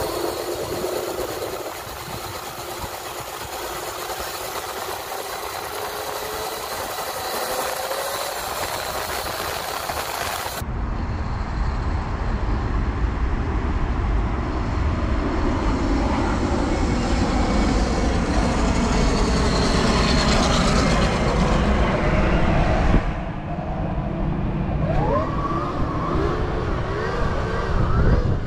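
Electric dirt bike motors whining, the pitch sliding up and down with the throttle, over a steady rush of wind and riding noise. About ten seconds in the sound changes abruptly to a heavy low rumble. Near the end several sharp rising whines come as the bikes accelerate.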